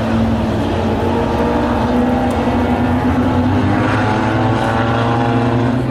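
Engines of a field of Tuner-class compact race cars running at pace speed on pace laps, a steady drone of several engines together.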